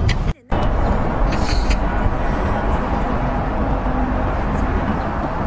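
Wind buffeting an outdoor microphone: a steady, rough low rumble and rush, broken by a brief dropout about half a second in.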